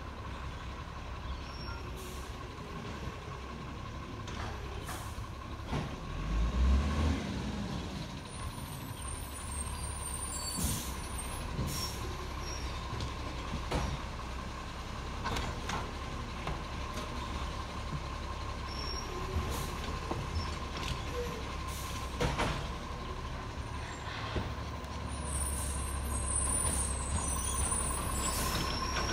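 International Acco side-loader garbage truck's diesel engine running as the truck creeps forward, surging briefly about seven seconds in, with a steady whine over the engine. Short hisses come several times, typical of air brakes being applied and released.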